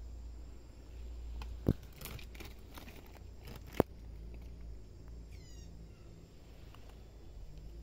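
Rustling and small ticks of movement through leaf litter and undergrowth, with two sharp clicks or snaps, one about a second and a half in and one about four seconds in. About five seconds in comes a brief high chirping call.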